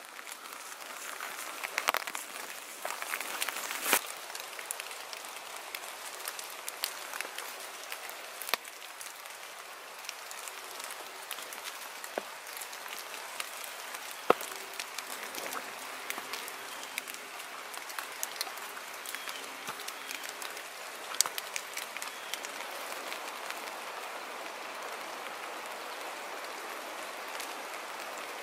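Footsteps on wet leaf litter, irregular crunches and snaps, over a steady patter of rain on the forest floor.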